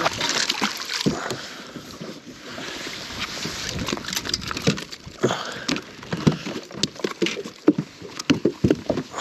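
Water splashing and sloshing as a hooked fish is landed at the side of a fishing boat, followed in the second half by a run of sharp knocks and rattles as the fish is handled in the boat.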